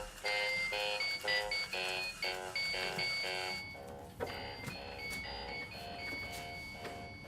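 Electronic alarm clock playing a repeating beeping tune: short electronic notes, about two and a half a second, changing pitch from note to note. About halfway through a background hiss drops away and the beeping carries on a little quieter.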